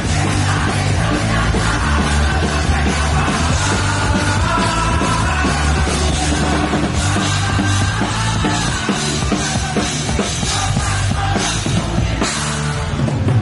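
Ska band playing live and loud: drum kit, electric guitars and bass, with sustained melody lines over the top.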